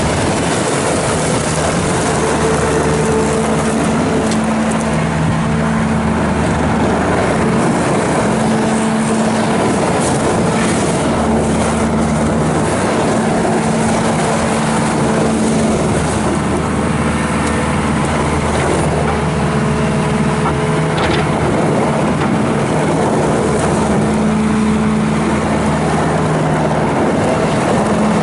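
Bobcat S650 skid steer's 74 hp Kubota diesel running steadily while the machine is worked, with a whine that comes and goes every few seconds and a couple of brief clanks.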